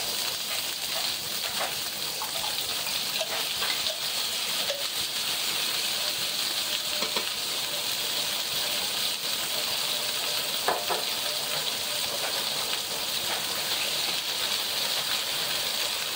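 Chicken, green beans and garrofó beans sizzling steadily in hot oil in a frying pan, as tomato is spooned in and stirred, with a few faint short scrapes of the utensil.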